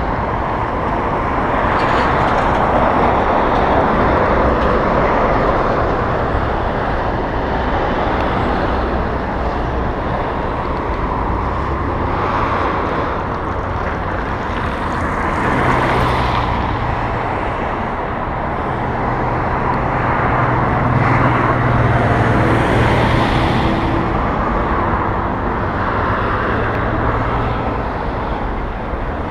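Wind rushing over the microphone of a moving electric bicycle, with road traffic noise around it. Partway through, a steady low hum joins in for about ten seconds.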